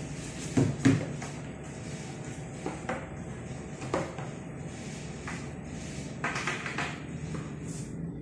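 Cardboard packaging being handled as a black packaging insert is lifted out of a white cardboard box: two sharp knocks about a second in, a few lighter knocks, and a scratchy rustle near the end, over a steady low hum.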